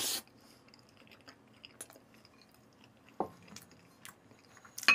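A person chewing a mouthful of soft steamed kabocha squash and braised beef short ribs close to the microphone: quiet, scattered mouth clicks and smacks, with a sharper smack about three seconds in and another near the end.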